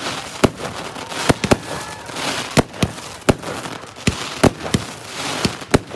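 Aerial fireworks bursting overhead: a rapid, irregular run of sharp bangs, about ten in six seconds, over a continuous hissing background.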